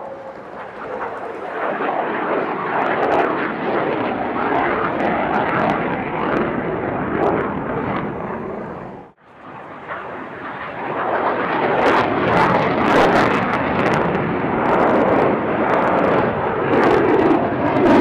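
Lockheed Martin F-22 Raptor's twin Pratt & Whitney F119 turbofans at high power: a loud jet roar that cuts out briefly about halfway, then builds back up louder, with sharp crackles through the second half.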